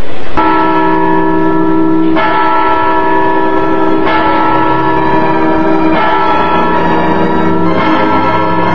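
Clock-tower bells tolling, with a new stroke about every two seconds, each one ringing on under the next.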